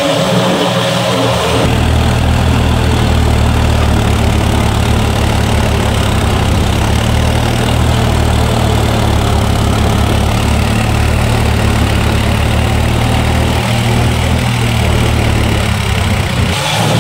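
John Deere tractor's diesel engine running steadily with a low rumble as the tractor drives through flooded paddy mud, heard close up from the driver's seat.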